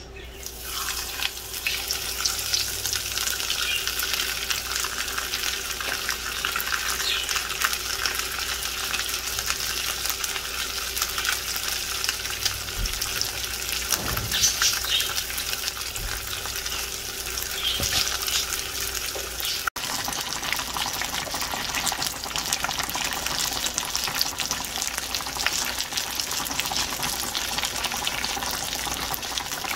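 A whole fish coated in pinol goes into hot oil in a frying pan and fries with a dense, steady sizzle and crackle that starts as it hits the oil.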